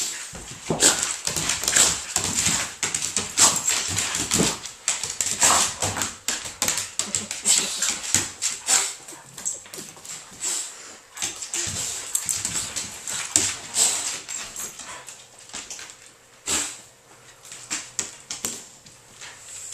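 Two dogs play-wrestling on a hardwood floor: a busy, irregular scuffle of paws and claws scrabbling on the wood, mixed with dog vocal noises and short whimpers. It is rough but friendly play, with one sharp outburst about sixteen seconds in after the scuffling has eased.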